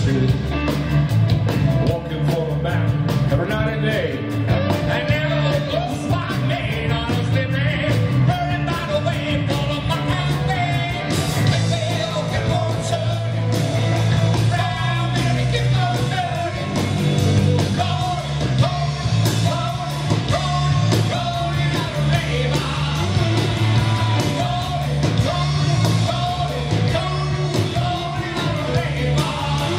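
Rock band playing live: drum kit, electric guitars and bass guitar in a continuous, loud full-band passage.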